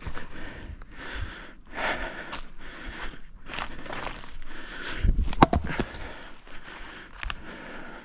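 Footsteps and rustling, with a short cluster of sharp knocks about five seconds in.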